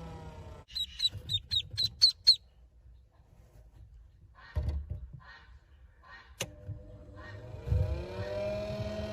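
Call duck duckling peeping: a quick run of about eight short high peeps near the start. A motor hum dies away at the start and spins back up with a rising pitch near the end.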